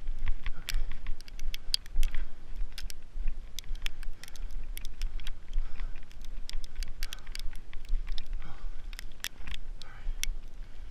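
Icy snow ticking and crackling in many sharp, irregular clicks, over a low rumble of wind buffeting the microphone.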